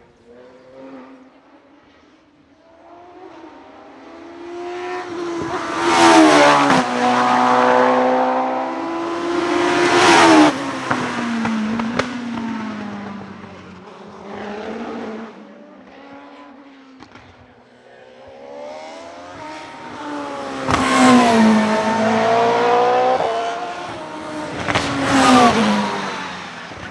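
Hillclimb race car engines revving hard as the cars accelerate past, with the pitch climbing and dropping back at each quick upshift. Two passes go by, one starting a few seconds in and fading about halfway, the next swelling near the end.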